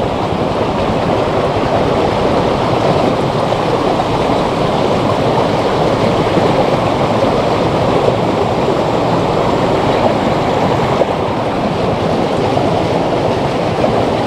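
Steady, loud rush of fast-flowing water churning through a small ditch.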